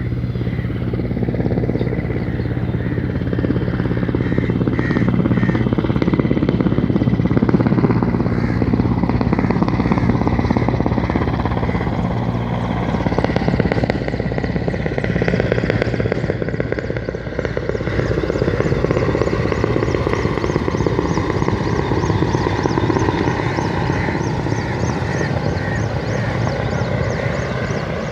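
Pakistan Air Force helicopter running steadily, its rotor and turbine engine giving a continuous loud, rapid chop with a steady low hum.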